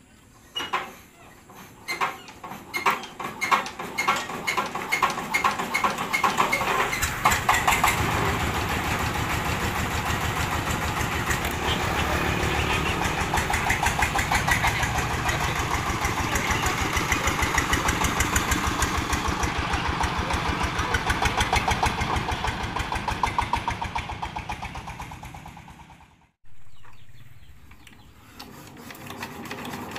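Small diesel engine on a homemade farm vehicle, hand-cranked into life: slow, separate chugs speed up over the first several seconds until it settles into a steady fast run. Near the end it fades and breaks off, and a second diesel engine, driving a rice thresher, is heard running.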